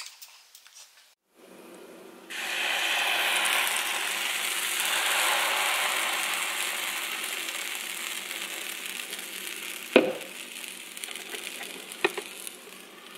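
Waffle batter sizzling on the hot plates of an open waffle iron, starting suddenly a couple of seconds in and slowly dying down. Two sharp knocks near the end.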